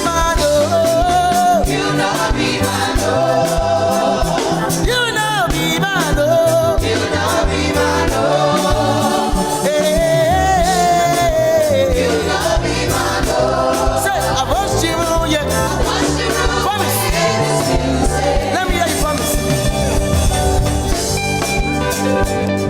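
Gospel music with a lead voice singing over a steady band beat and bass, with choir voices.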